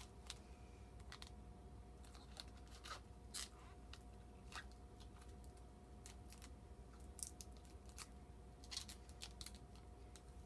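Faint, scattered crackles and clicks of protective plastic film being peeled off the steel frame parts of a clay slicer, as the parts are handled.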